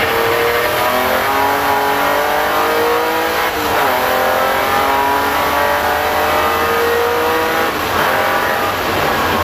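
BMW M3 race car's engine heard from inside the cockpit, accelerating hard through the gears: its pitch climbs steadily, drops at an upshift about three and a half seconds in, climbs again and drops at another upshift near the end.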